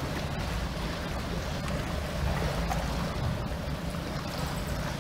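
Small motorboat's engine running steadily, a low rumble, with water washing along the hull.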